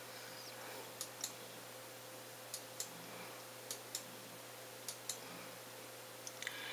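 Four pairs of short, sharp computer clicks, each pair about a quarter-second apart, as the pages of an e-book are turned on screen. A faint steady electrical hum lies underneath.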